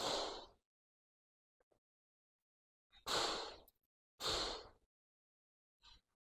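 A person's short breaths close to the microphone: one right at the start, two more about three and four seconds in, and a faint one near the end, with near silence between.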